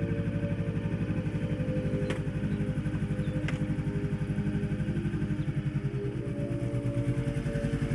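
Honda CB500X's parallel-twin engine idling steadily, with a couple of light clicks about two and three and a half seconds in.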